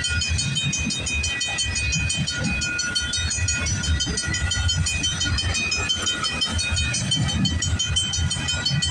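CP freight train's covered hopper cars rolling past: a steady low rumble of wheels on rail, with high-pitched steady tones that come and go over it.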